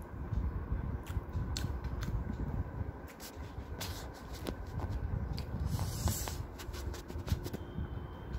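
Close handling noise: rustling and scattered short clicks over a steady low rumble.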